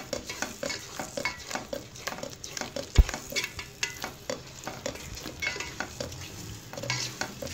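Spoon stirring thick semolina halwa in a metal pot, a run of scrapes and light clicks against the pot with a soft sizzle of the oil underneath, as the halwa cooks down until the ghee separates. One sharp knock of the spoon on the pot about three seconds in.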